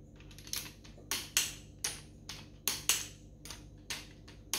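A ratchet wrench clicking in a run of sharp, separate clicks, about two to three a second, as it is worked back and forth on the crankshaft snout of a Holden 253 V8 bottom end to turn the crank.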